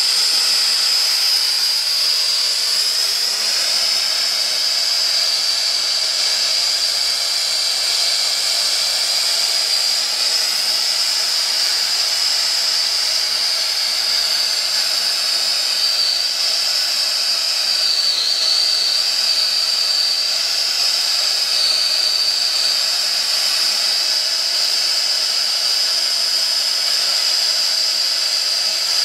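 Air-acetylene TurboTorch burning steadily with an even rushing noise, its flame heating a copper pipe to brazing temperature.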